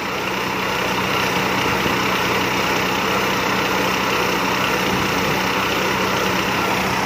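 Combine harvester running steadily at working speed while unloading rice into a truck.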